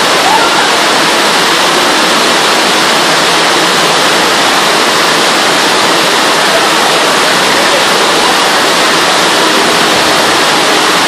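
Heavy tropical downpour: a loud, steady hiss of rain pouring onto trees and wet ground.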